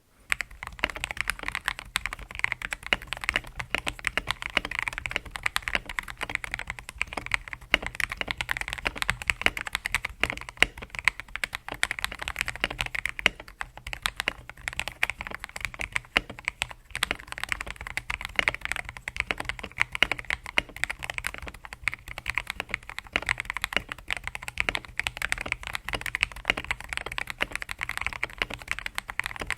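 Continuous fast typing on a TM680 mechanical keyboard with lubed Akko CS Matcha Green linear switches and bubble XDA PBT keycaps, the case tape-modded and foamed. A dense run of keystroke clacks starts just after the beginning and keeps an even pace without pauses.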